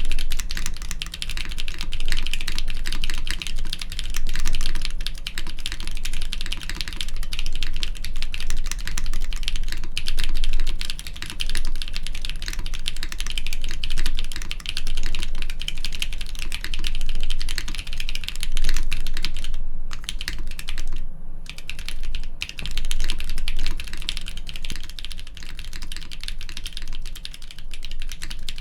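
Fast, continuous typing on a mechanical keyboard fitted with doubleshot plastic keycaps, a dense run of key clacks. There are a couple of brief pauses about two-thirds of the way through.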